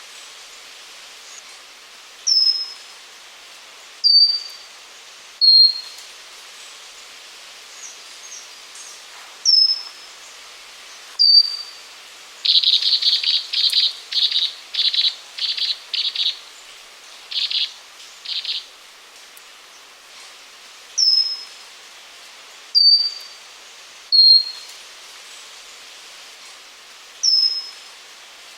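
Pygmy wren babbler singing: single high, thin whistled notes, each slurring downward, repeated every second and a half to two seconds. In the middle comes a louder run of about eight rapid, harsh, buzzy notes, then two more, all over a steady background hiss.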